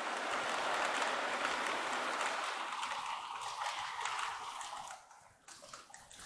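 K-Line O-27 gauge toy steam locomotive and freight cars running on three-rail track, a steady rattling rush that drops away about five seconds in, leaving a few light clicks.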